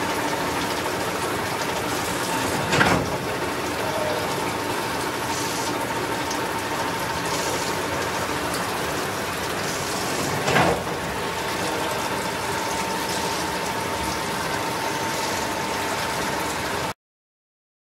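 Gildemeister AS20 multispindle automatic lathe running: a steady mechanical drone with a thin steady whine and the hiss of coolant, broken twice by a sharp clank about eight seconds apart. The sound cuts off suddenly near the end.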